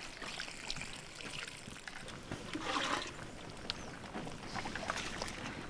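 Open wood fire crackling with scattered sharp snaps under large cooking pots, with a watery bubbling and trickling from the pots of boiling rice.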